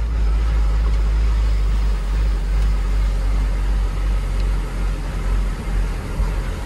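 Vehicle engine and tyre noise heard from inside the cab while driving over an unpaved, rough road: a steady low rumble with a rushing haze above it.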